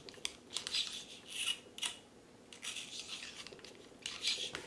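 Spiral bore brush on a cleaning rod scrubbing back and forth through a revolver barrel, loosening lead and fouling. It comes as repeated scratchy brushing strokes, about two a second.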